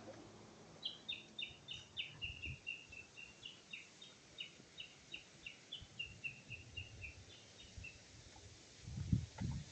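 A small songbird singing a long string of short, quick repeated notes, paired notes at first and then a run of lower single notes, lasting about seven seconds. A few low thumps come near the end.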